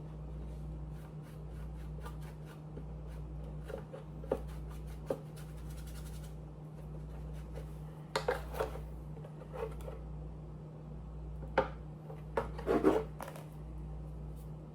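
A steady low hum that pulses about once a second, with scattered light clicks and a few short scraping, rubbing sounds of small objects being handled.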